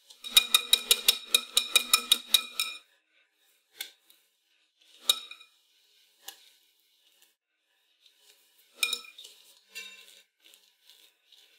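Wire whisk clinking rapidly against a metal bowl, about five or six ringing strikes a second for a couple of seconds, as heavy cream is whipped. Then a few separate metal clinks, and soft scraping near the end as a palette knife spreads the cream.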